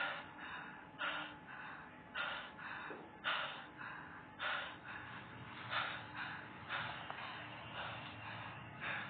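A person breathing hard close to the microphone, with sharp, noisy breaths about once a second.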